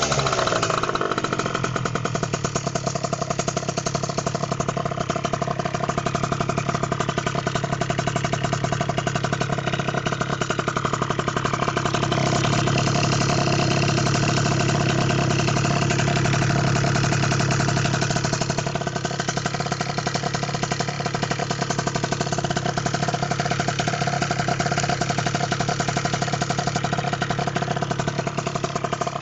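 Malaguti Phantom F12 scooter's tuned two-stroke engine, with a Stage6 Sport Pro MK2 cylinder, Mikuni TM24 carburettor and Yasuni C20 exhaust, idling steadily.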